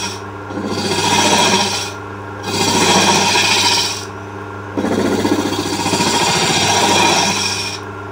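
Hook tool scraping into the end grain of a spinning wooden cup on a wood lathe, flattening the bottom where the cut crosses onto long grain: three rasping passes, the last and longest about three seconds, over the lathe's steady motor hum.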